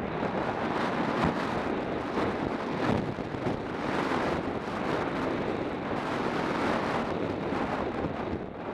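Wind buffeting the microphone of a skier's body-worn camera on a downhill run, mixed with the hiss and scrape of skis sliding over packed snow. It eases a little near the end.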